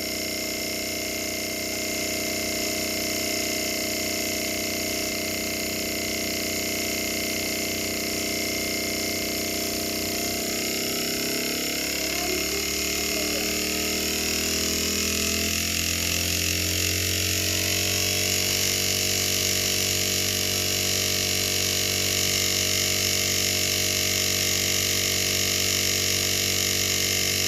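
Repaired refrigerator inverter compressor running off a PWM inverter drive, giving a steady electrical whine made of several tones. About ten seconds in, the tones slide as the motor speed changes and a deeper hum grows. They then settle steady and slightly louder.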